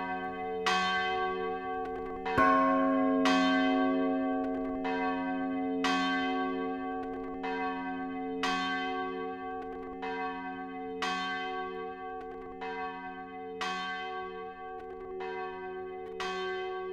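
Church bells pealing: several bells strike in turn about once a second. Each strike rings on, over a steady low hum from the bells still sounding. The loudest strike comes about two and a half seconds in.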